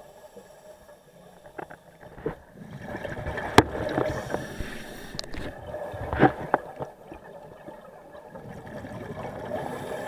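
A scuba diver's exhaled bubbles gurgling out of the regulator, heard through an underwater camera housing, swelling and fading with each breath. Two sharp clicks, about 3.5 s and 6 s in, are the loudest sounds.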